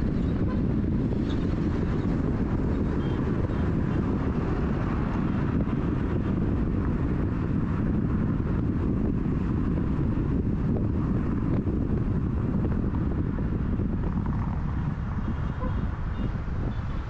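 Volkswagen Polo TSI on the move: steady road, tyre and wind noise, heaviest in the low end, easing slightly near the end.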